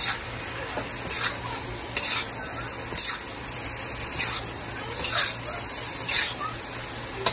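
Shrimp frying in a hot pan with a steady sizzle, stirred with a spoon that scrapes the pan about once a second.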